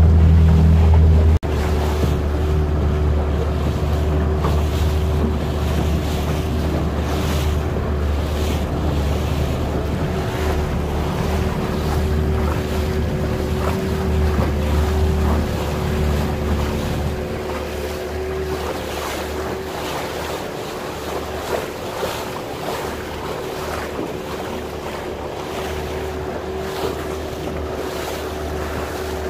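Motorboat engine running underway: a steady low drone with a constant tone above it. Wind buffets the microphone and water rushes past. The sound drops out for an instant about a second in, and the low drone softens in the second half.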